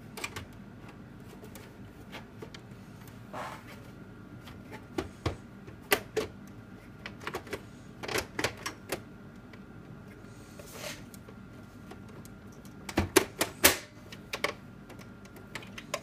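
Sheet-metal optical disc drive being fitted back into a desktop computer's drive bay: scattered clicks, knocks and scrapes of metal and plastic, with a louder cluster of knocks near the end.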